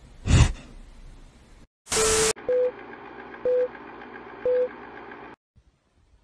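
Old-film countdown leader effect: a burst of static, then a short beep once a second, three times, over a faint crackling hiss that cuts off suddenly. A short loud burst comes about half a second in.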